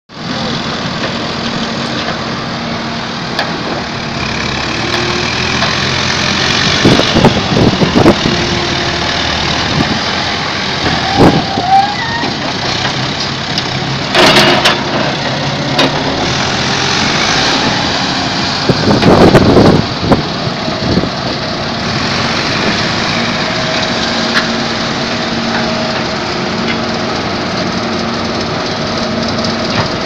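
Construction machinery running with a steady engine hum, broken several times by loud knocks and clattering.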